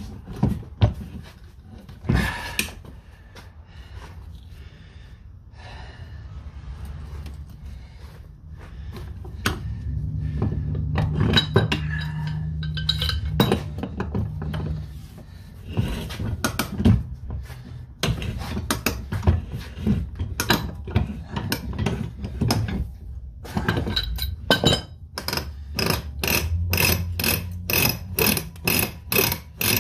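Manual ratcheting pipe threader with a 2-inch die cutting threads onto 2-inch rigid steel conduit as its handle is cranked: irregular metal clicks and clinks, settling near the end into a steady run of ratchet clicks about two a second.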